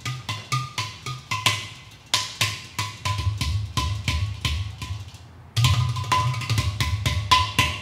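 Hand-played ceramic udu drums (clay pot drums): quick, irregular slaps and strokes, each giving a deep, hollow bass thump with a short pitched ring. The playing thins out briefly about five seconds in, then comes back denser and louder.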